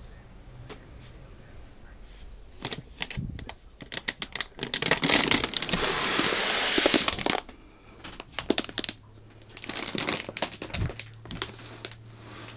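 Plastic wrapping and foam packing being handled: crinkling and rustling with many small clicks, in irregular bursts. The longest and loudest burst is in the middle and lasts about three seconds.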